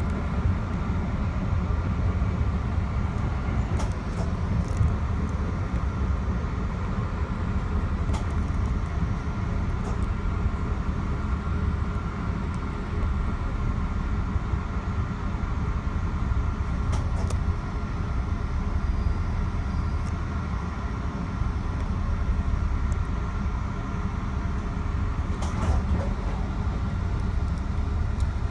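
Metro-North commuter train running along the track, heard from inside the car: a steady low rumble with a few short sharp clicks and squeals from the wheels on the rails.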